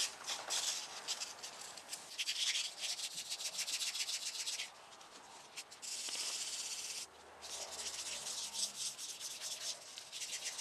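1000-grit sandpaper rubbed by hand in quick back-and-forth strokes over a chrome fork tube wet with PB Blaster, scrubbing off surface rust; the strokes stop briefly about halfway through, then resume.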